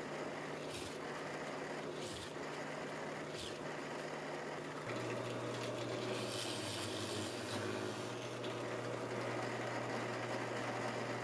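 Drill press motor running with a steady hum while the bit drills a series of holes in wood, short bursts of cutting about once a second at first and a longer cut a little past the middle. The hum drops to a lower pitch about five seconds in.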